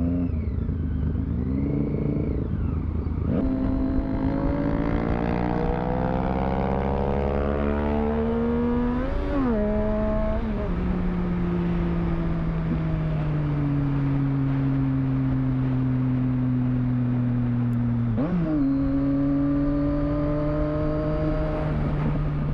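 Triumph Street Triple 675 inline-three motorcycle engine being ridden: it revs up steadily under acceleration, changes gear near the tenth second, then cruises with slowly falling revs. Near the end it jumps to higher revs on a gear change. Wind rumble sits underneath.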